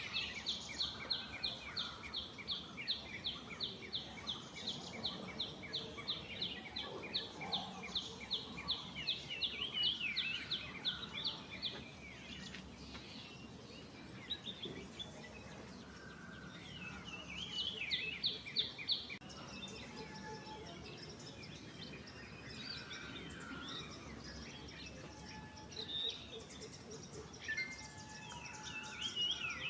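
Birds calling: one bird repeats a high note about three times a second for some twelve seconds, then gives a shorter, quicker run of notes a few seconds later. Fainter chirps from other birds fill the rest.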